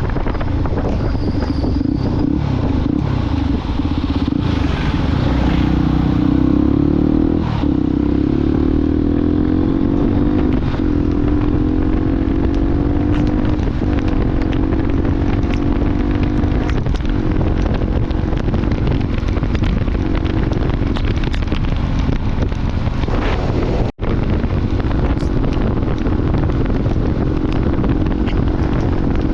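Motorcycle engine running under way, with wind rushing over the microphone; the engine note climbs and drops several times in the first half. A very brief break in the sound about 24 seconds in.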